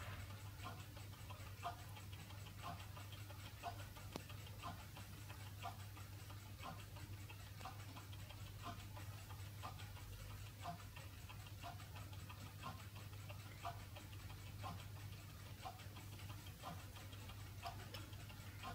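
Faint, regular ticking about once a second, over a low steady hum.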